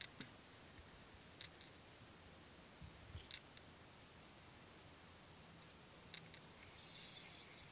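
Near silence: a faint steady hiss, broken by a few short, sharp clicks scattered through.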